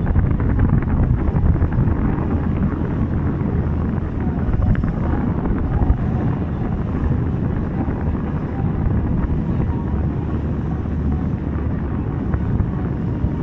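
Boat engine running steadily with a low drone, mixed with wind buffeting the microphone.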